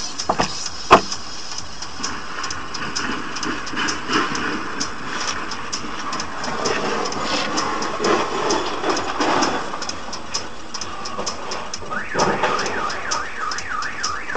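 Street and engine noise with a sharp click about a second in. Near the end a car alarm starts, a warbling tone that rises and falls several times a second.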